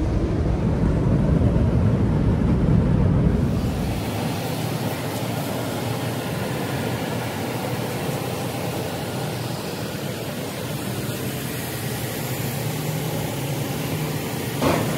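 Automatic car wash heard from inside the car: a deep rumble for the first three or four seconds, then an abrupt change to a steady rushing noise, with one short knock near the end.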